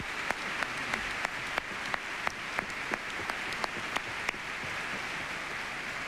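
Large theatre audience applauding, an even wash of clapping. One nearby pair of hands stands out, clapping about three times a second, and stops about four seconds in.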